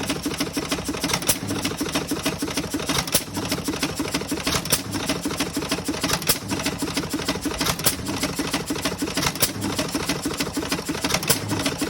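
An Amanco 3½ hp hit-and-miss stationary engine, about a hundred years old, running with a fast mechanical clatter and a louder stroke every second and a half to two seconds. It has a light knock and rattle, which the owner thinks needs adjusting.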